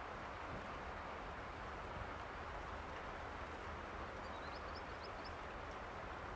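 Steady rain, an even hiss with a low rumble beneath. A few quick, high chirps sound about four to five seconds in.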